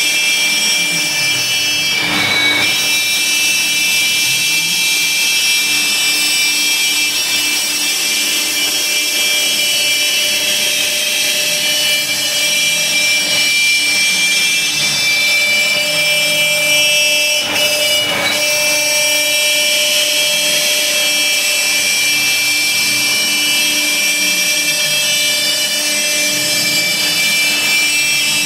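Laguna Swift CNC router's spindle whining steadily as its bit cuts half-inch plywood. The sound changes briefly twice, once about two seconds in and once a little past halfway.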